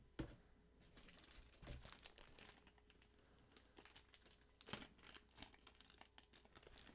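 Faint crinkling and rustling of handled wrapping, with soft knocks about a quarter second in and again near five seconds, over a faint steady hum.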